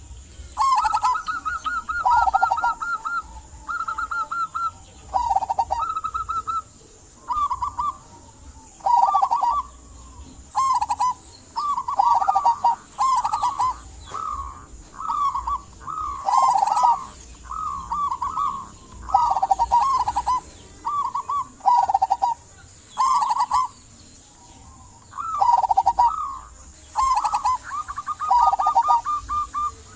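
Zebra dove (perkutut) cooing over and over: short, rapid, rolling phrases repeated every one to two seconds, sometimes overlapping. This is the lively 'gacor' song played to coax quiet perkutut into cooing.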